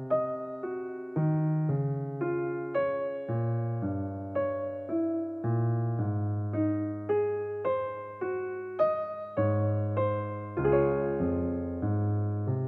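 Background music played on a piano-like keyboard: a melody of struck, decaying notes over low bass notes, with a new note about every half second.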